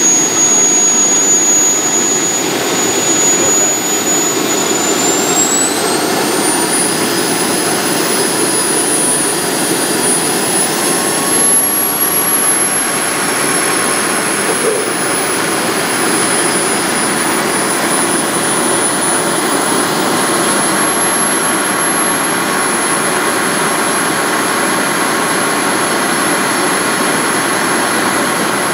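Kerosene-fired model gas turbine in a 5-inch gauge GT3 locomotive, running with a high whine over a steady rush. The whine steps up in pitch three times as the turbine is run up from idle.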